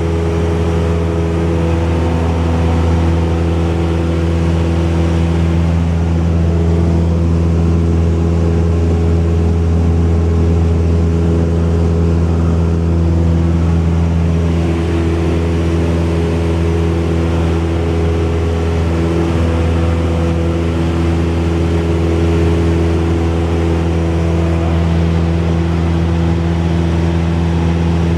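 Cessna 172's piston engine and propeller droning steadily at a constant power setting.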